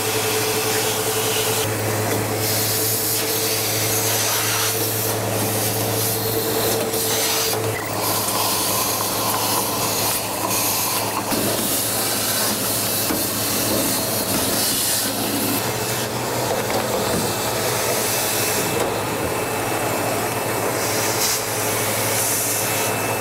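Upright vacuum cleaner running with its hose wand, sucking up drilled metal shavings: a steady rush of air over a low motor hum. The airflow's sound shifts as the nozzle is moved over surfaces, and a faint higher tone drops out about eight seconds in.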